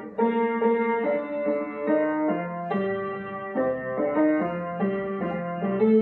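Piano music: a steady run of chords changing about twice a second.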